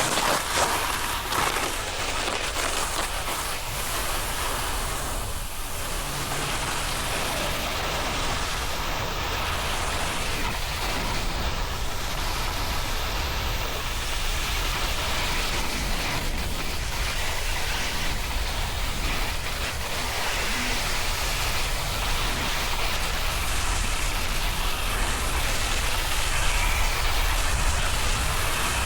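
Snowboard sliding and carving over snow: a steady rough hiss of the board's base and edges on the snow, with wind rumbling over the microphone as the rider descends.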